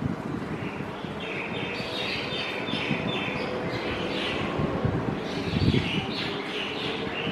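Birds chirping in quick runs of short high calls, thickening about a second in, over a steady low rumble.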